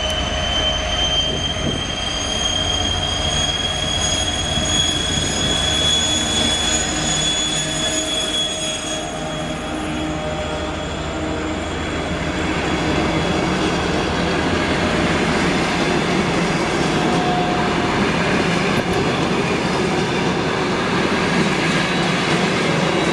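TEP70 diesel passenger locomotive passing close by, its engine running with a steady high whine over a low drone. About nine or ten seconds in the whine fades and the passenger coaches roll past, wheels rumbling and clattering on the rails.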